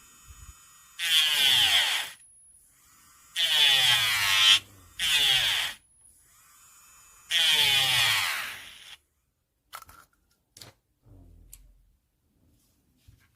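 Electric nail drill (e-file) motor: a faint steady whine, broken by four loud, louder-pitched bursts of a second or so each, that stops about nine seconds in, followed by a few faint clicks.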